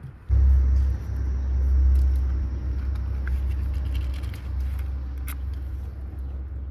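A loud, steady low rumble that starts suddenly just after the start, with a few light clicks over it and one sharp scrape about five seconds in: a match struck on its box to light dried dung cakes in a clay oven.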